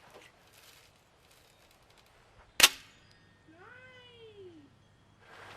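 An air gun fires once with a sharp crack. About a second later a cat meows once, rising and then falling in pitch.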